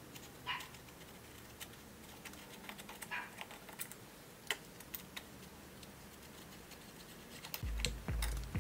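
Sparse clicks, taps and short scrapes of hand tools and metal parts as work goes on at the fan clutch of an Audi A4's engine. Near the end a low, regular thumping begins, about two beats a second.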